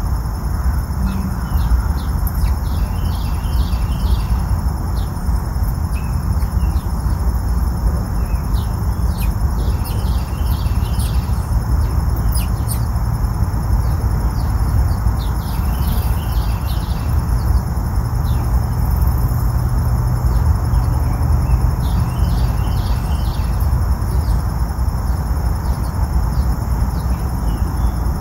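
Insects trilling steadily at a high pitch, with short clusters of bird-like chirps every several seconds, over a loud low rumble.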